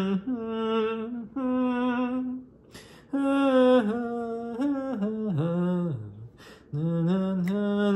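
A single voice humming a slow, wordless melody in held notes, in short phrases with a brief pause about two and a half seconds in and another just after six seconds.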